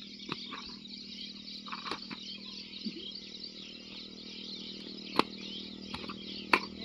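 Outdoor background of many birds chirping together over a steady low hum, broken by two sharp clicks about a second and a half apart near the end.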